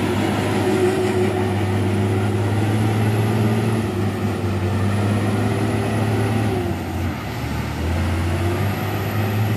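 Loaded heavy diesel dump truck pulling away uphill: a steady low engine drone with a faint high whistle above it. The engine note changes about seven seconds in.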